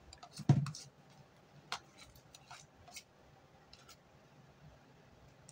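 Sparse light clicks and taps of a spoon and bowl being handled, with a brief louder knock about half a second in.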